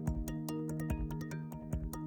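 Background music with a steady beat and held notes.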